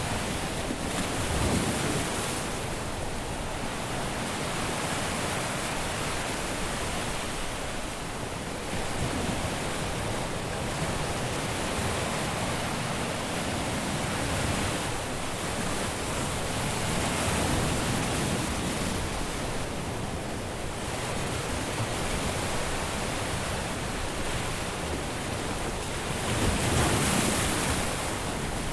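Caribbean surf breaking and washing up a sandy beach, a steady hiss of foam that swells with each wave every few seconds, the strongest wave breaking near the end.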